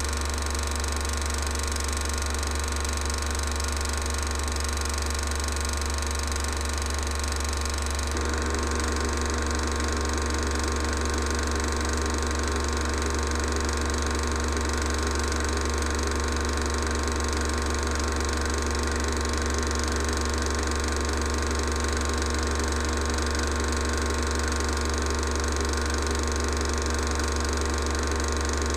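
16mm cine projector running: a steady mechanical whirr over a strong low hum, growing slightly louder and coarser about eight seconds in.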